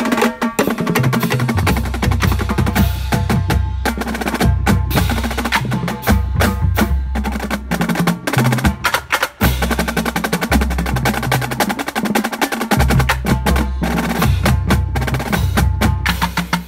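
Marching drumline playing together: snare drums in fast, dense rhythmic patterns over pitched bass drums that come in and drop out in phrases.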